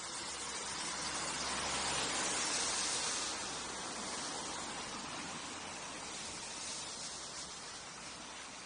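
A car passing on a wet road: tyre hiss that swells to its loudest about two to three seconds in, with a low engine hum beneath, then slowly fades.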